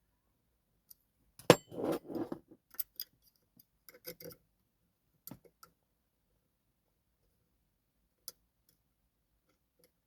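Sharp metal clicks and clinks of a dimple pick and tension wrench working the pins of a TESA T60 dimple lock, in scattered groups with pauses between, the loudest about a second and a half in.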